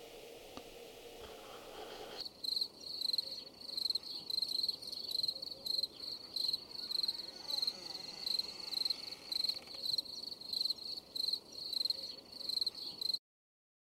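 Crickets chirping outdoors at night: a steady high-pitched pulse, about two chirps a second. It starts about two seconds in, after faint room tone, and cuts off suddenly near the end.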